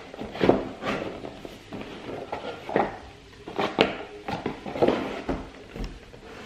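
A cardboard game box filled with wooden tower blocks is being slid open and shut by hand. A series of scrapes and knocks come at irregular moments as the sleeve slides over the inner tray and the box is pushed about.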